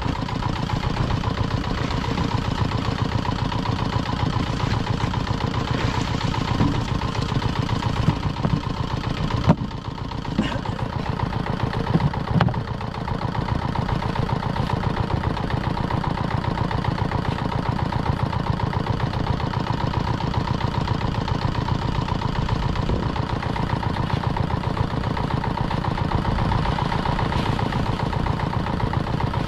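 Small fishing boat's engine running steadily, a mid-pitched hum with a fast even firing rhythm. It eases briefly about ten seconds in and again a couple of seconds later.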